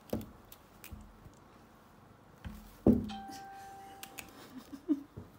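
Knocks and bumps from a cat clambering up a lace curtain at a window, the loudest about three seconds in. A brief ringing tone follows it.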